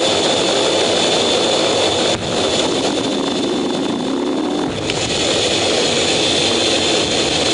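F/A-18 Hornet jet engines running at high power: loud, steady noise with a high whine, dipping briefly about two seconds in and again near the middle.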